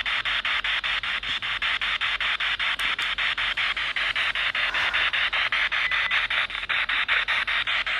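Steady hiss of static broken by short, regular dropouts about five times a second.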